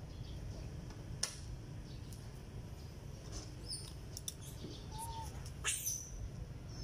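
A steady low rumble with a few sharp clicks and short, high animal chirps and squeaks scattered through it, one clear chirp about five seconds in.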